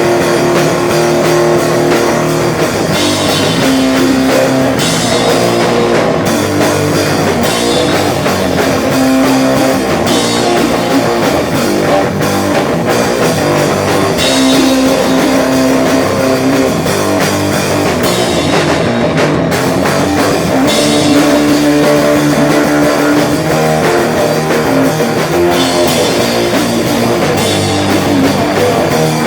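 A live rock band playing loud, with electric guitar and drum kit.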